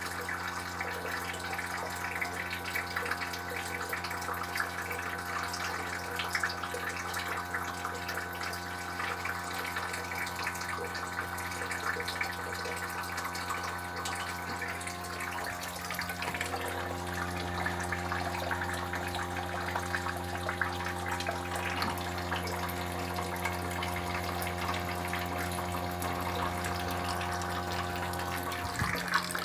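Haier air conditioner running a defrost cycle: a steady machine hum with several held tones and a hiss like flowing water over it. The tones shift in pitch about halfway through.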